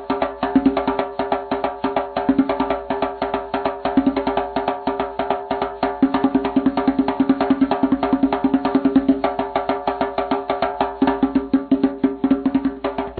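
Music-like percussion: a fast, even run of sharp taps, several a second, over a steady low tone.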